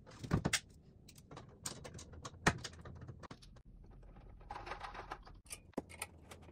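Scattered clicks and knocks of metal parts being handled as a table saw's steel front fence rail is fitted and a small hand tool works at the table edge, with two sharper knocks about half a second and two and a half seconds in.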